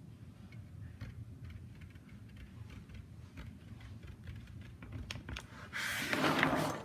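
Pencil ticking and scratching lightly as it traces lines on paper on a tabletop. About six seconds in, a louder rustle as the sheet of paper is lifted and shifted.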